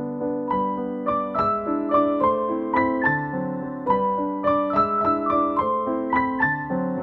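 Background piano music: a gentle melody of single struck notes over a low accompaniment, a few notes a second.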